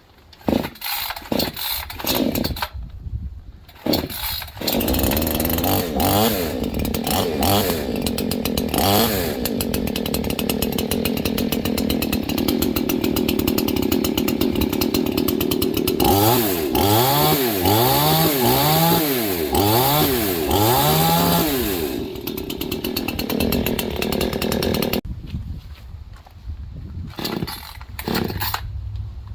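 Proyama PCS50 two-stroke chainsaw (49.3cc, a Red Max G5000 clone) on its first run. It sputters in a few short bursts as it is started, then runs and revs up to a steady high rev. About halfway it is blipped up and down about five times, then drops back to a low, uneven idle near the end.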